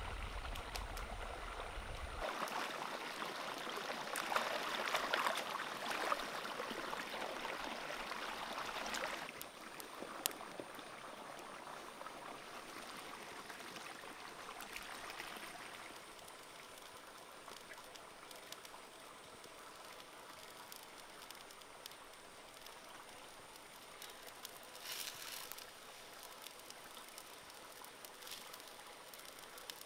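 Wood cooking fire crackling, a dense run of small pops and ticks, louder for the first several seconds and then quieter.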